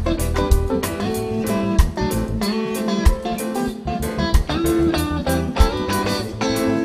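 Live reggae band playing: an electric guitar takes the lead with quick single-note lines over bass and drums.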